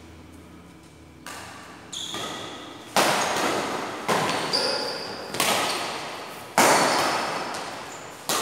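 Badminton rackets striking a shuttlecock in a rally: a string of sharp smacks about one a second, faint at first and louder from about three seconds in, each ringing out in the hall's echo.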